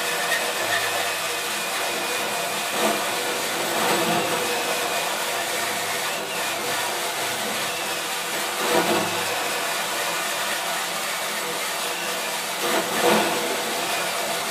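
Cordless Makita drill turning a 4.5-inch hole saw at low speed through the sheet-metal bottom of an electrical enclosure: a steady motor whine with the teeth grinding on the metal, and a few brief louder catches as the saw bites.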